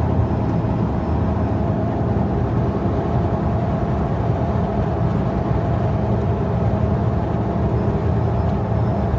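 An old Jeep driving steadily on the highway: an even drone of engine and tyre noise with a low hum.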